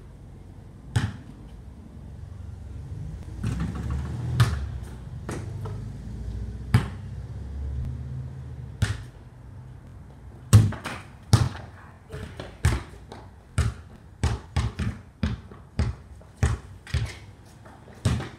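Basketball bouncing on a concrete driveway: a few separate bounces at first, then steady dribbling at about two bounces a second from about halfway through. A low rumble is heard for a few seconds in the middle.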